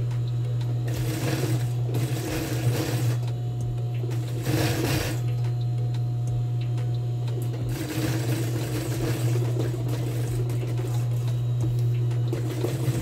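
Industrial sewing machine topstitching fabric in short runs over a steady motor hum: a run about a second in, a short one around four to five seconds, and a longer run from about eight seconds on.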